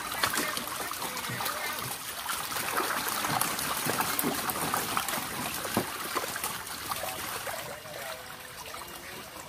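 Water splashing and trickling, with many small slaps as a dense mass of yellow catfish thrashes in a shallow tarp-lined holding pit around a plastic mesh basket.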